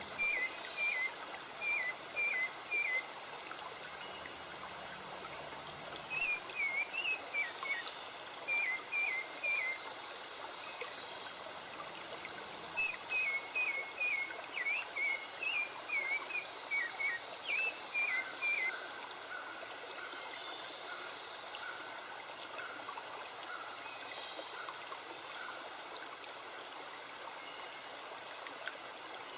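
A forest stream running steadily, with a songbird calling short, repeated chirps, about two a second, in three runs during the first two-thirds.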